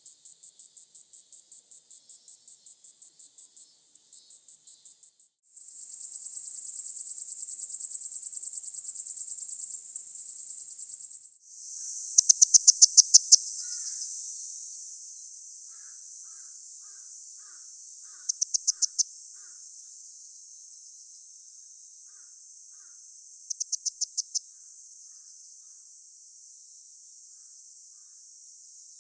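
Cicadas singing in very high-pitched songs, in several excerpts one after another. First comes a rapid pulsed buzz at about five pulses a second, then a continuous buzz, then a steadier, quieter high drone broken three times by short bursts of quick pulses.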